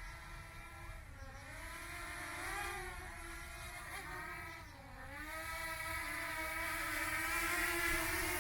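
Small DJI Mini quadcopter fitted with LED propellers flying, giving a steady propeller whine that dips in pitch twice as the motors change speed and grows louder toward the end.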